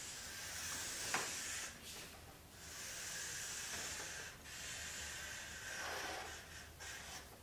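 Felt-tip marker drawing on flipchart paper in three long hissing strokes, with a light tap about a second in.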